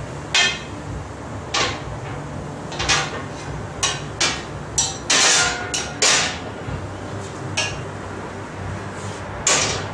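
Metal doors of a wood-fired oven being swung shut and latched: an irregular run of about a dozen sharp metallic clanks and knocks, with a longer rattling clank about five seconds in and another loud one near the end.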